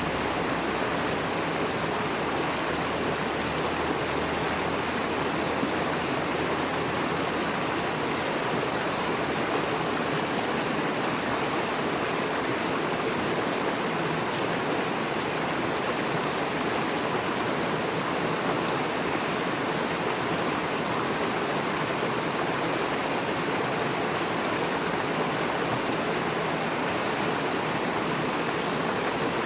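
A fast-flowing river rushing steadily over and between rocks.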